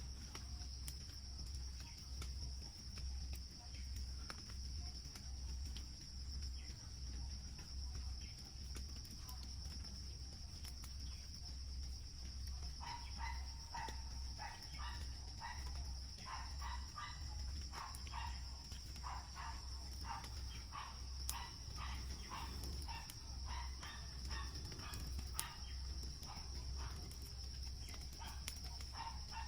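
Insects in the rainforest keeping up a steady high drone. Over the middle of it, a run of short repeated sounds comes about twice a second, starting about halfway in and stopping near the end.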